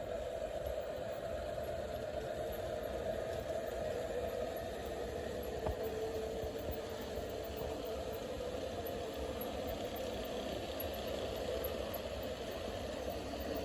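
Garden-scale model train running along its track, a steady mechanical hum.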